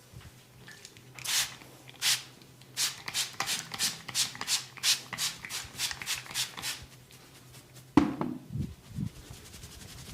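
Massage hands rubbing quickly against skin and hair, a run of rapid scratchy strokes about three or four a second, then a single sharp smack about eight seconds in followed by a few soft thumps.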